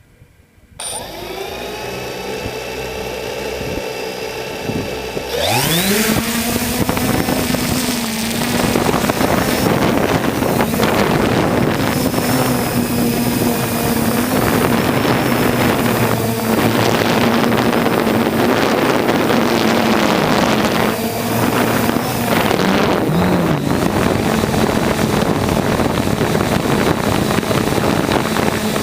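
3DR Solo quadcopter drone starting up: its motors spin up to a low idle about a second in, then about five seconds in the pitch rises sharply as it throttles up and takes off. A steady propeller buzz follows, with small shifts in pitch as it flies.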